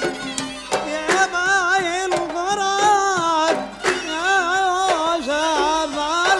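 A man singing a traditional Gulf Arabic song in two long phrases with wavering, ornamented pitch, over a plucked oud and qanun.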